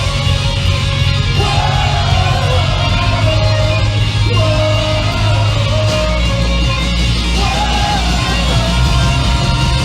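Live band playing loud emo/hardcore punk: distorted electric guitars over bass and drums, with a wavering melodic guitar line on top and the bass shifting to a lower note about six seconds in.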